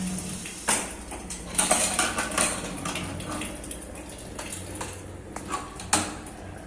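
Aluminium pressure cooker lid being unlatched and lifted off, with several sharp metal clinks and clatters, over a steady low hum.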